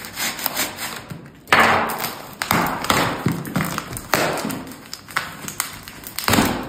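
Cardboard shipping box being pulled open by hand: packing tape tearing and cardboard flaps scraping and crinkling in a series of rough bursts, with some taps and thumps on the box.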